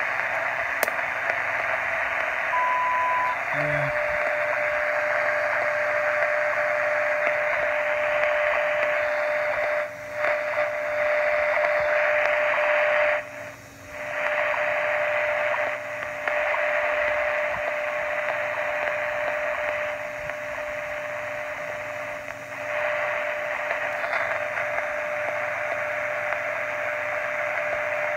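ARC-5 shortwave receiver's speaker giving static hiss with the WWV time signal tuned in: a short tone of about 1 kHz, then a steady tone near 600 Hz running under the hiss. The signal dips out briefly a few times.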